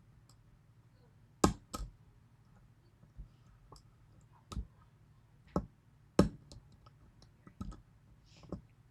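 Lock pick and tension wrench working the pins of a 6-pin Yale pin-tumbler lock with spool drivers: sharp metal clicks and taps at irregular intervals, about seven over several seconds.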